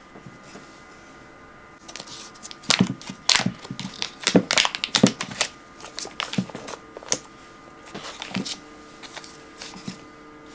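Foil butter wrapper being peeled open and folded back from a block of butter: a run of crinkling crackles starting about two seconds in, thickest in the first half, then thinning to a few scattered crinkles.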